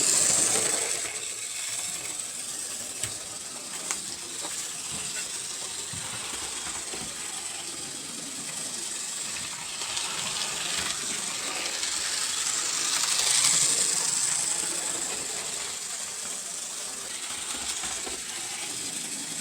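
HO scale model F unit locomotive running on the track: a steady high hiss and whine from the motor and wheels on the rails, with faint ticks, swelling louder about two-thirds of the way through.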